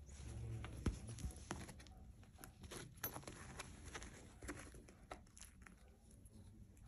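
Schnauzer puppies shuffling and pawing against each other in a fabric pet stroller: soft irregular clicks, scratches and rustles, with one sharper knock about a second in.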